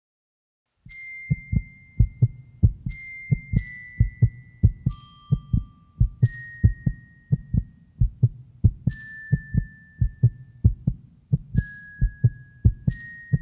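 A rapid heartbeat of soft low thumps over a low steady hum, with single high chime notes ringing out one at a time every second or two. It starts about a second in.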